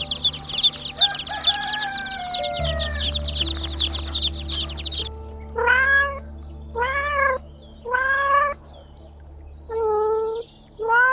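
Rapid, high-pitched chirping over background music for the first half, then a cat meowing five times, each meow rising and falling in pitch, about a second apart.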